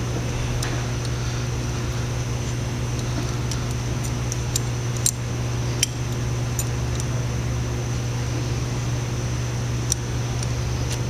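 A steady low mechanical hum, with a few light metallic clicks, mostly in the middle and once near the end, as a lock nut is spun down by hand over its lock washer on a bearing shaft.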